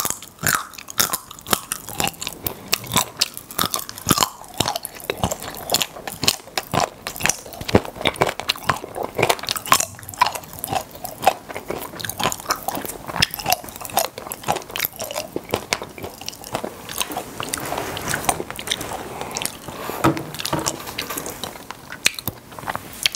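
Chewing popping-candy chocolate right at a clip-on microphone: steady wet chewing with many quick crunches and crackling clicks, packed close together.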